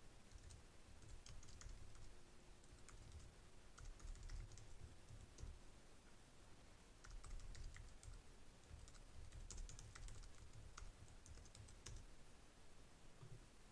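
Faint typing on a computer keyboard: irregular runs of short key clicks with brief pauses between them.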